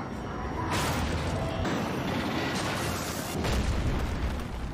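Cartoon battle sound effects: a Hulk growl at the start, then several explosion booms and a heavy rumble, loudest in the second half.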